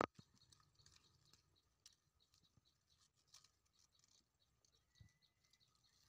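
Faint rustling and small scattered ticks from pineapple leaves and stalk being handled as the fruit is worked loose from its plant, after one sharp click at the very start.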